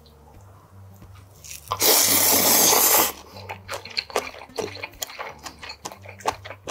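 A loud, wet slurp of cold spicy noodles lasting about a second, followed by a run of moist chewing and lip-smacking clicks.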